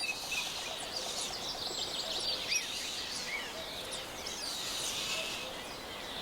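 A chorus of many small birds chirping and singing, with quick, high, overlapping notes.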